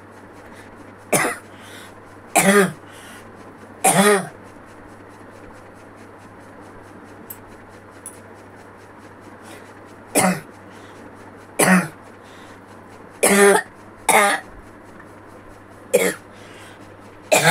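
A woman coughing, about nine single coughs a few seconds apart, with a long pause in the middle; she puts the cough down to a cold she has caught.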